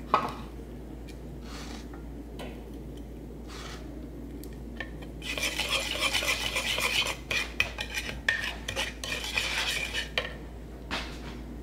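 A spoon whisking a dressing in a small wooden bowl: a sharp knock at the start and scattered light taps, then a run of fast clinking and scraping strokes from about five seconds in to about ten seconds in.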